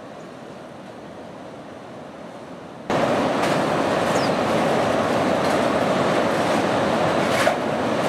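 Steady rushing outdoor noise of ocean surf and wind on the microphone. About three seconds in it jumps abruptly much louder, with a few faint clicks over the top.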